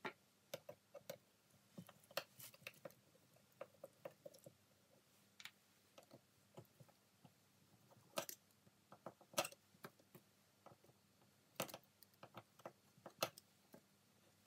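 Scattered light metallic clicks and taps of small screws, tools and steel parts being handled while a three-jaw lathe chuck is taken apart, with a few sharper clicks in the second half.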